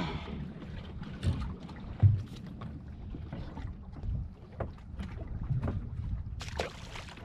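Wind buffeting the microphone and choppy water against a small boat's hull at sea, with scattered sharp knocks and taps from handling on board.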